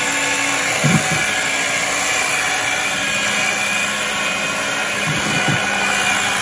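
Waring electric hand mixer running steadily, its beaters whipping stiff egg whites in a stainless steel bowl while egg yolks are poured in and beaten through for an egg batter.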